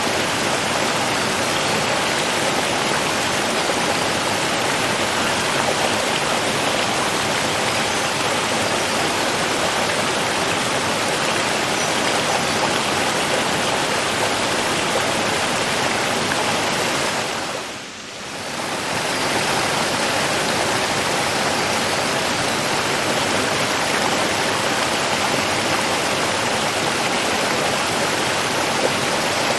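Running water rushing steadily. About two-thirds of the way through it fades down briefly, then comes back to the same level.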